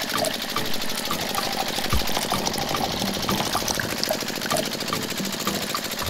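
Water pouring in a steady stream from a small spout into a part-filled toy bucket, with a small electric pump motor whirring along with it. A short low thump about two seconds in.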